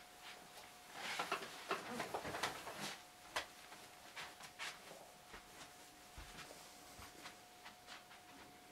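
Faint rustling of clothing and scattered soft knocks and clicks as a person gets up from a piano bench and moves away, busiest between about one and three seconds in, with a few small knocks later; a faint steady whine runs underneath.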